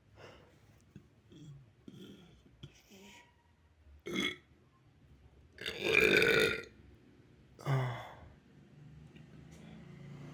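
A boy burping three times. A short burp comes about four seconds in, then a longer, louder one lasting about a second, then a shorter one.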